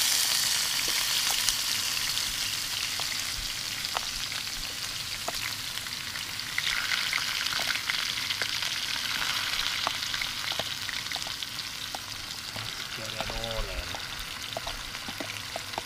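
Chorizo and onions sizzling in a hot pan, a steady hiss with scattered pops, loudest at first and slowly dying down.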